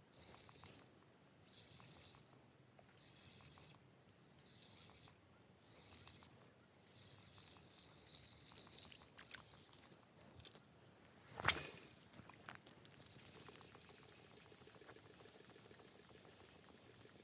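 An insect calling in repeated high-pitched pulses, about one every second and a half, which fade out about nine seconds in. A sharp click comes a little past the middle, then only a faint steady hiss.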